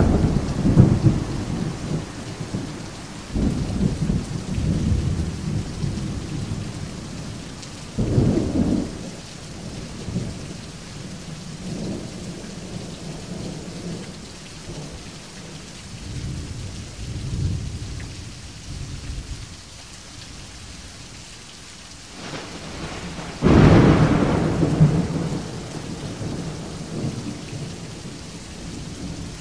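Steady jungle rain with thunder rumbling several times. The loudest, a sudden thunderclap rolling into a long rumble, comes about three-quarters of the way through.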